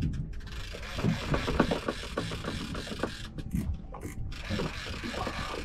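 Big-game conventional fishing reel being cranked under heavy load, its gears and ratchet giving off a run of irregular clicks as line is wound in against a hooked fish.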